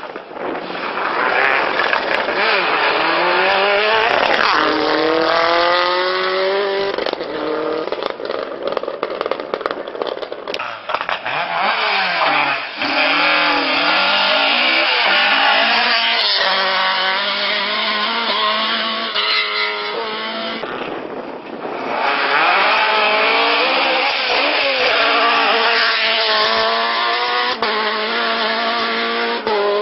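Rally-prepared Ford Escort Mk2 engines revving hard, the pitch climbing and dropping back over and over through gear changes as the cars accelerate along the stage, with a brief lull about two-thirds of the way in.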